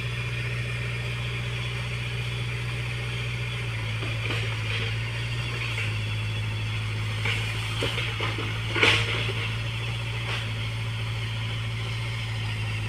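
Mini excavator's diesel engine running steadily, its note shifting slightly a few times, with a few short knocks and scrapes of digging work, the loudest about nine seconds in.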